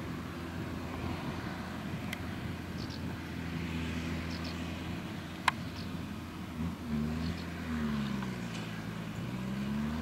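Deutz-Fahr tractor's diesel engine running steadily as it pulls a McHale F5500 round baler along a straw windrow; the engine note dips and climbs again over the last few seconds. A single sharp click about halfway through.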